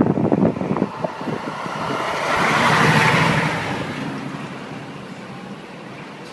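A few knocks in the first second, then a heavy vehicle goes past, its noise swelling to a peak mid-way and fading away.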